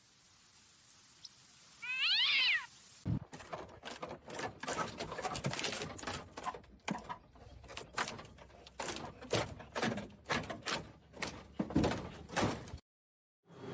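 A cat meows once, about two seconds in. It is followed by a long run of irregular knocks and thumps.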